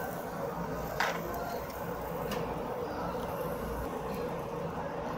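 Steady hum of a grill-table smoke-hood fan over restaurant room noise, with a sharp metal utensil click about a second in and a fainter click about a second later.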